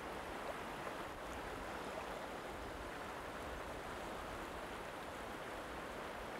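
Shallow, rocky river flowing over stones: a steady rush of running water.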